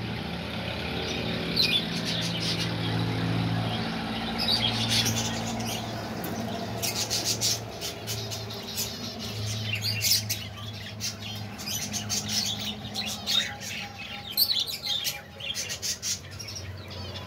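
A flock of budgerigars chirping and chattering, many short calls overlapping, busiest in several clusters, over a low steady hum.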